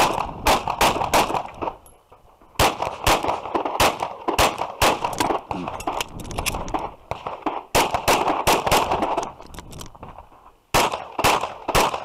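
Glock 34 9mm pistol fired in quick strings of shots, each about a third of a second apart. There are four strings, with pauses of a second or so between them.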